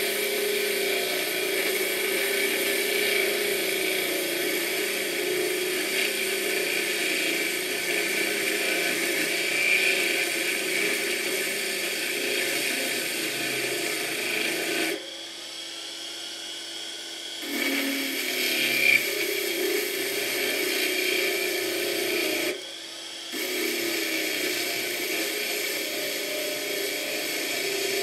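Washing machine motor spinning its pulley while a hand file is pressed against the turning metal, filing it down as on a makeshift lathe: a steady whirring hum mixed with the hiss of the file cutting. The sound drops away sharply twice, for a couple of seconds about halfway through and again briefly a few seconds later.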